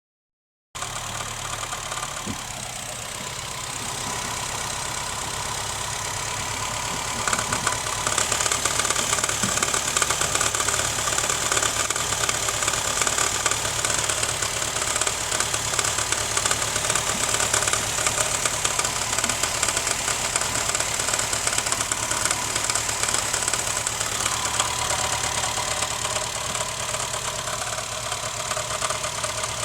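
2011 Honda Fit with its engine running and a steady, fast rattle over the engine note, which gets louder about seven seconds in.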